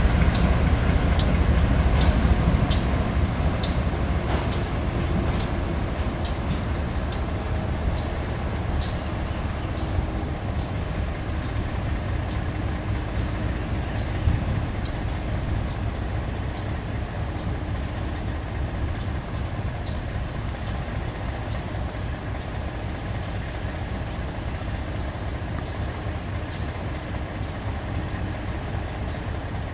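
Diesel engine of a GE B23-7 locomotive running as the locomotive moves slowly, a heavy low rumble that eases gradually over the first several seconds. Sharp clicks come through it about once a second.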